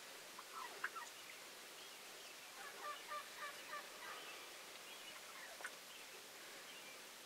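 Wild turkey gobbling, faint: a rapid rattling gobble a few seconds in, with a few short sharp notes before and after it.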